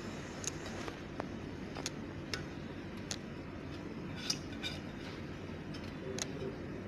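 Light metal clinks and taps, about eight of them at uneven intervals, as thick cooked mango pulp is transferred onto a ghee-greased steel plate.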